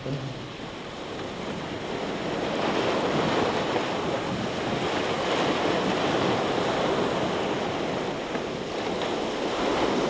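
Rough sea surf: waves breaking and washing in a steady rushing noise that builds up over the first two seconds or so.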